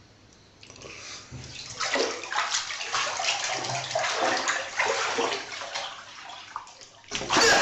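Water running and splashing into a bathtub, building up about a second in and cutting off suddenly near the end.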